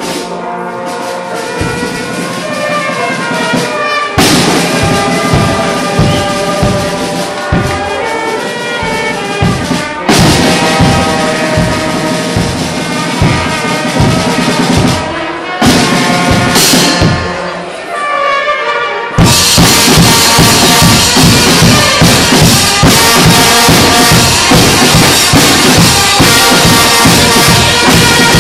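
Live brass and drum band playing: trumpets and trombones over bass drum and percussion beats. About two-thirds of the way through, the full band comes in louder with busier drumming.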